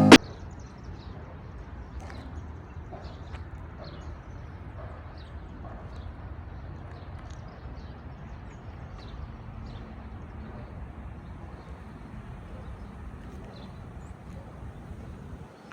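Outdoor ambience: a steady low rumble with scattered short, high chirps of small birds. The rumble drops away just before the end.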